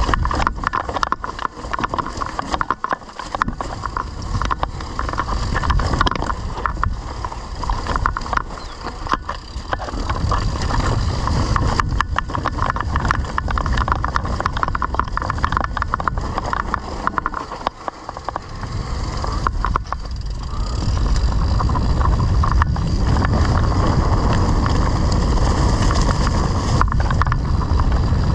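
Mountain bike riding over rough off-road ground, with the frame and chain clattering in dense irregular knocks. From about twenty seconds in, a steadier low rumble of wind on the microphone dominates.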